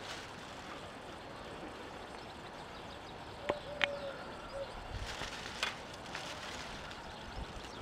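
A dove cooing once about halfway through: a short note, a long held note and a short note, over steady outdoor background. Two sharp clicks come just before the call.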